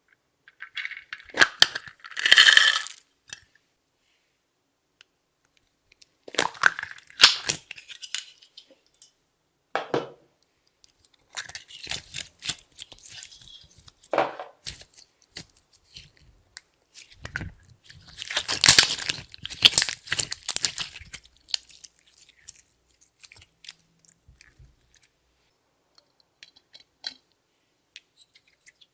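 Close-up sounds of makeup and glitter being worked into clear slime: several bursts of crackling and crunching with quiet gaps between, the loudest about two seconds in and again around eighteen to twenty-one seconds.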